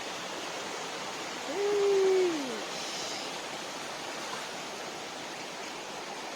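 Steady rush of a waterfall and its stream. About a second and a half in, a short voice-like sound, falling in pitch, rises briefly above it.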